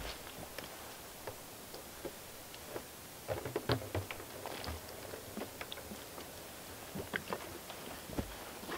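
Faint scattered clicks, rustles and knocks of handling at a plastic bait barrel. From about three and a half to five seconds in there is a short run of low knocks and thuds while a plastic jug of used deep-fryer oil is tipped into the barrel.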